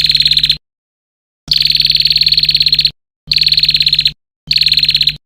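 Recorded isian call for training a white-rumped shama: a fast, buzzy pulsed trill, high-pitched and steady, repeated four times in bursts of under a second to about a second and a half, with dead silence between them as in an edited loop.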